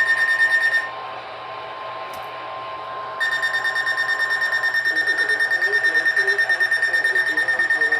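A steady single-pitch emergency alert tone, like the 1050 Hz weather-radio warning tone, sounds under a loud, rapidly pulsing electronic alarm buzzer. The buzzer drops out about a second in and comes back about three seconds in. The steady tone stops a little after that, and a faint voice is heard beneath the buzzer.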